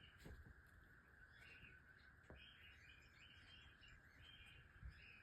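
Near silence: a faint steady hum with a few faint, short high chirps.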